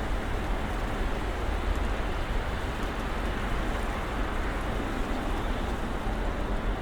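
Snowstorm ambience: a steady, even hiss with a low rumble underneath, unchanging throughout.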